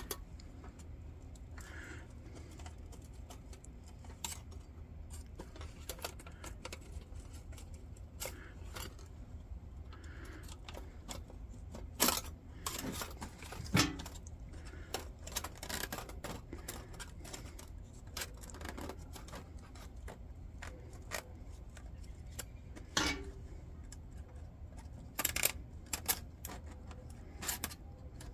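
Scattered small metallic clicks and taps as bent tabs on a plain-steel folding candle lantern are worked open to take a mica pane, with several sharper clicks in the middle and near the end, over a low steady hum.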